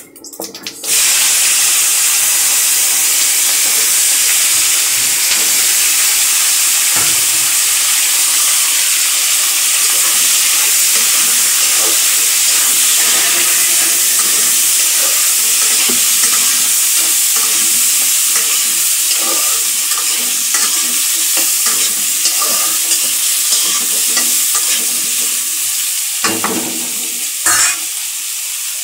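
Cut radish and radish stalks hit hot oil in a kadai about a second in and sizzle loudly. They then fry with a steady hiss while a steel spatula stirs and scrapes them around the pan, and the hiss eases slightly near the end.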